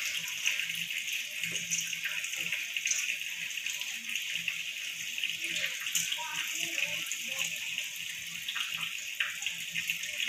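Soaked, wet rice tipped from a stainless-steel bowl into a cloth over a sieve, with hands scraping the grains out: soft wet rustling and light scraping against the bowl over a steady watery hiss.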